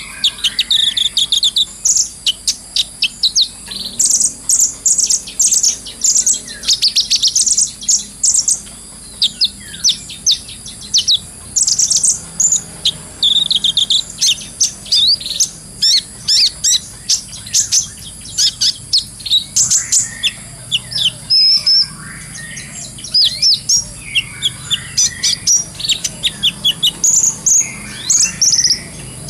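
Kolibri ninja sunbird singing continuously: rapid, high-pitched chirps and twittering trills following one another almost without pause, over a steady high hiss.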